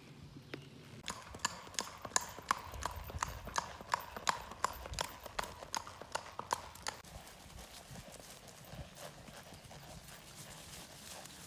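A horse's hoofbeats clip-clopping on a paved path at a quick, even gait, about four a second. They become soft and sparse about seven seconds in as the horse moves onto grass.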